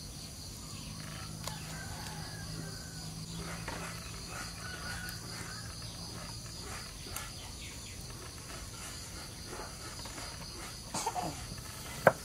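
Steady high insect chorus with light scattered clicks and rustles of vegetables being handled. Just before the end, one sharp knock of a knife chopping onto a wooden cutting board.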